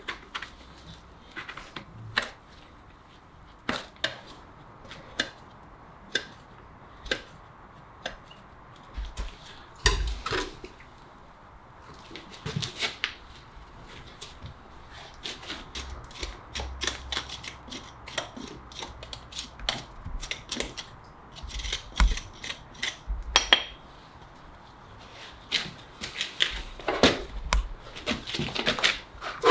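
A horse's hoof being worked with farrier's tools: a run of sharp clicks and short scraping strokes, spaced out at first and coming thicker from about halfway through.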